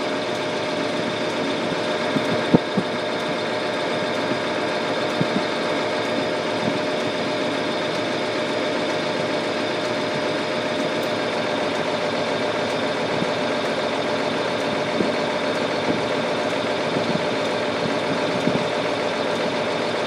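John Deere 4055 tractor's six-cylinder diesel engine running steadily, heard from inside the closed cab as an even drone with a steady hum.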